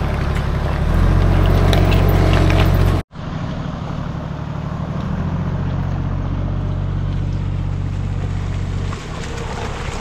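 Four-wheel-drive diesel engines running, with water sloshing around the wheels in a shallow river crossing; the engine gets louder about a second in. After a sudden break a few seconds in, a Toyota Hilux 3.0 D-4D turbo-diesel runs steadily as it wades through the water, easing off near the end.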